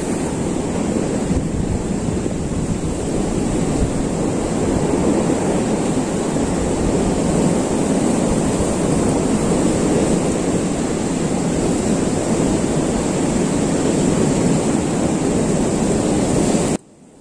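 Sea surf washing over a rocky shore, a steady dense rush with wind rumbling on the microphone; it stops abruptly shortly before the end.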